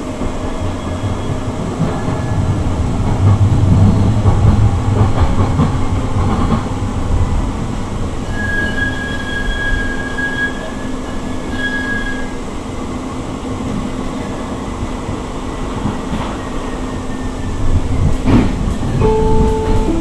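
Siemens S200 light-rail vehicle running at speed, heard from inside the car: a steady rumble of wheels on rail with a constant hum from the IGBT-VVVF traction drive. The rumble swells a few seconds in, and a thin high squeal comes in for a few seconds in the middle.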